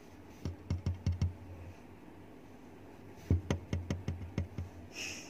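Quick light clicks and knocks in two runs, one starting about half a second in and another a little past three seconds, with a low rumble under each and a short hiss near the end.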